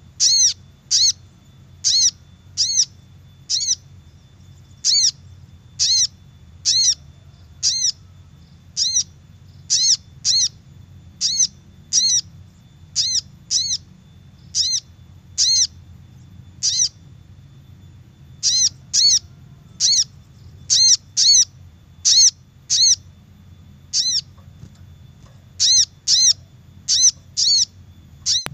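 Little spiderhunter (sogok ontong) call: a long run of short, sharp, high chirps, roughly one a second with uneven gaps and some quick pairs, played as a lure call to attract wild birds. A faint steady hum lies under it.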